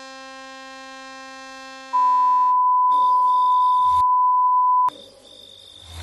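Electronic sound-effect tones: a quiet, steady buzzing tone rich in overtones, then a loud, pure, high-pitched beep that holds steady for about three seconds and cuts off suddenly, with a hiss of noise behind it.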